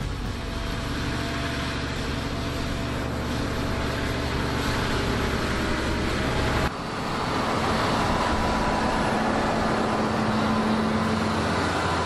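Fendt tractor engine running steadily under load while pulling a land leveller through loose soil. About two-thirds through, the sound cuts abruptly to a different, noisier stretch of tractor and leveller working, with a steady hum.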